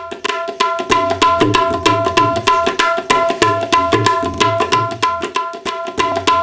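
Tabla played in a quick, steady rhythm as intro music: the ringing strokes of the high drum over low, pitch-bending strokes of the bass drum.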